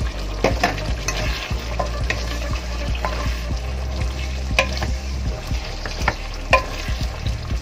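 A wooden spatula stirring chunks of squash and pork in a nonstick wok, with irregular knocks and scrapes of spatula and squash against the pan over the sizzle of the cooking sauce.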